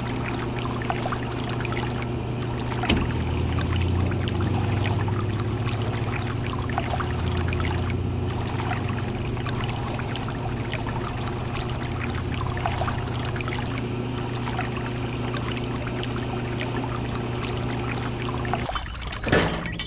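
A small electric motor hums steadily under a gritty trickling and pouring noise scattered with small clicks. The motor stops shortly before the end, followed by a sharp click.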